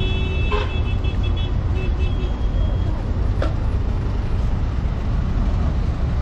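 Road traffic: motor vehicles idling and moving slowly in a steady low rumble. A high, broken tone sounds over it for the first couple of seconds, and a sharp click comes about three and a half seconds in.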